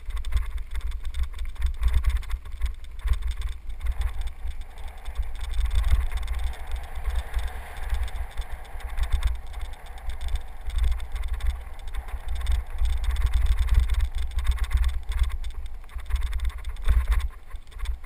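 Wind buffeting a helmet-mounted camera's microphone while riding a mountain bike down a dirt trail, with a steady hiss of tyres rolling on dirt and a few knocks from bumps.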